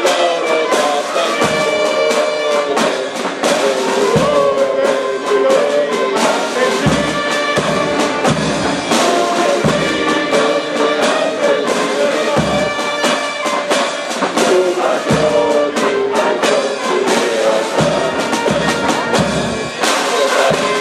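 Brass band playing a military march, with a low drum beat recurring about every second and a half.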